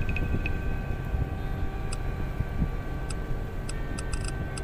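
Tugboat's diesel engine running steadily: a low rumble with a faint steady whine over it, and scattered light ticks.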